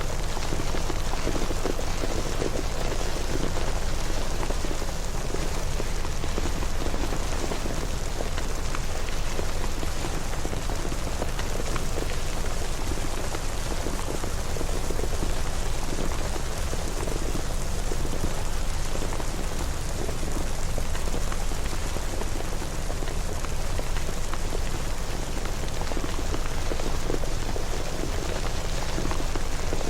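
Steady rain falling and pattering on surfaces, an even, unbroken hiss with small drop ticks throughout.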